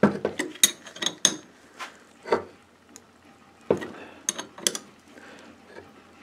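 Box-end wrench clinking on the retaining bolt of a Ford Model A starter drive as the bolt is tightened: short runs of sharp metal clicks, a quick cluster at the start and another about four seconds in.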